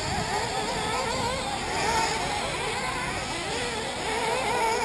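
Several 1/8-scale nitro RC buggies racing, their small two-stroke glow engines whining at high pitch and rising and falling as they accelerate and back off around the track.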